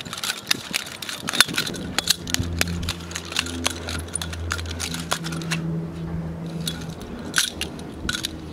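Rapid, irregular metallic clicks and clacks of twirled metal blades, with a low droning tone that comes in about two seconds in and fades near the end.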